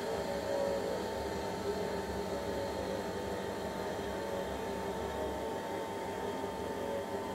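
Girbau commercial front-loading washer running with its drum turning: a steady mechanical hum with a faint steady whine.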